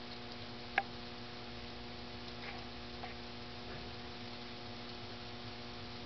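A steady low electrical hum, with one sharp click about a second in and a few faint ticks after it.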